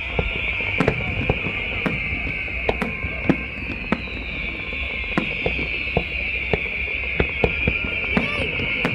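Fireworks display: aerial shells bursting in irregular sharp bangs, roughly one or two a second, over a continuous high hiss.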